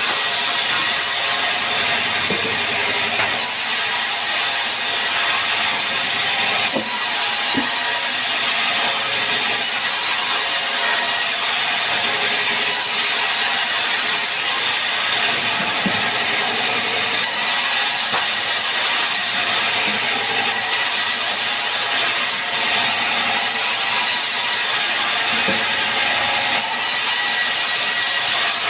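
Band sawmill running and sawing sengon wood: a loud, steady, hissing whine of the blade through the log that holds at an even level without a break.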